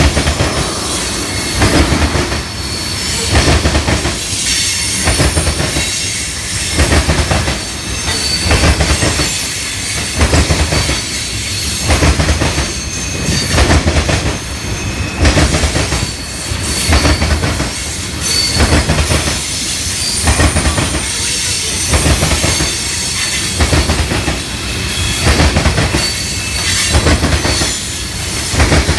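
A train's cars rolling past, their wheels clattering over the rail joints in an even beat about every second and a half or so, with a thin high squeal of wheels on the rails throughout.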